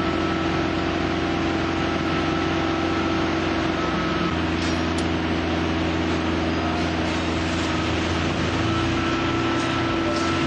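Diesel engine running steadily at a constant speed, a continuous low hum with a steady tone over it.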